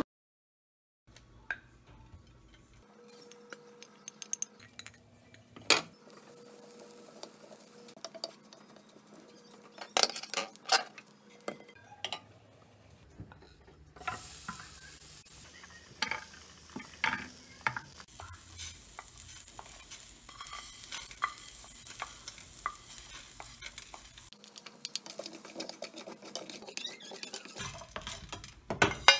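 Chopped ginger, garlic, peppercorns and cumin seeds frying in a pan, sizzling while a wooden spoon stirs and knocks against the pan. Before the sizzling starts, about halfway through, there are only scattered clinks and knocks of plate and spoon.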